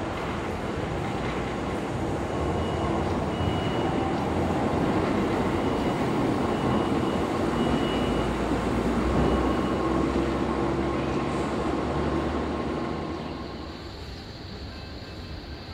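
Hong Kong Peak Tram funicular car running on its rails, a steady rumble that builds over several seconds and eases off near the end, with short high squeaks now and then.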